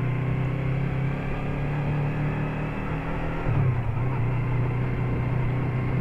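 Yamaha MT-03 motorcycle engine running steadily at low street speed, heard from on the bike with wind and road noise. About halfway through the engine note dips and then picks up again.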